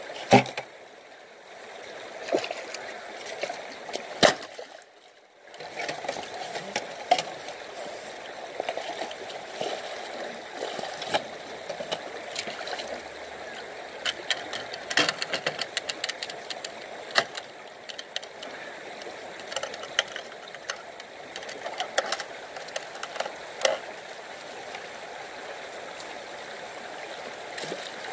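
River water splashing and sloshing around a person wading, with many scattered knocks and clicks from handling a gold-prospecting suction hose and floating sluice.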